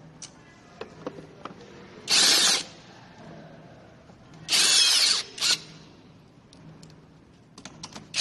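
Cordless electric screwdriver driving in screws in short runs with a whine: once about two seconds in, again about four and a half seconds in, then a brief third burst right after. Small clicks and taps of handled parts between the runs.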